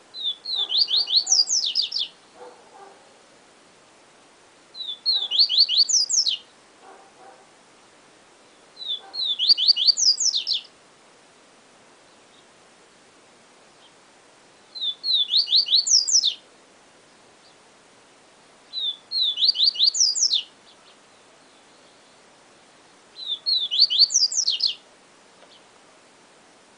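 Papa-capim seedeater (Sporophila) singing its 'siu siu professor' song: six short, high phrases of rapid sweeping notes, one about every four seconds.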